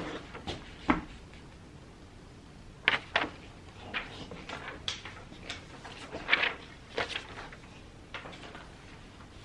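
Printed sheets of paper being handled and sorted: irregular rustles with light knocks on the tabletop, a sharper knock about a second in.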